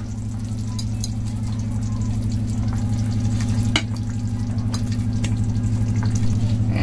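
Pumpkin curry bubbling in a kadai over a steady low hum, with a few light taps as fried fish pieces are laid into the pan one by one.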